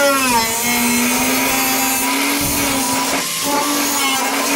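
A power grinder with a grinding wheel running at a steady high whine, with a hiss of grinding on top. Its pitch sags briefly just after the start and again about three seconds in as the wheel takes load, then recovers.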